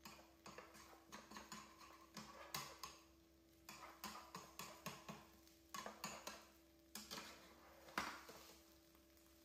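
Metal spatula scraping and tapping against a frying pan as a pancake is broken up and turned, in quick clusters of scrapes and clicks with short pauses between, with the sharpest tap about eight seconds in.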